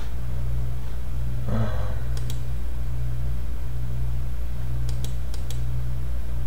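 A computer mouse clicking, once about two seconds in and three quick clicks around five seconds in, over the steady low hum of a running desktop computer.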